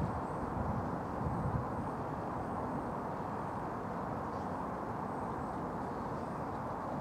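Steady outdoor background noise, with a few stronger low rumbles in the first second and a half.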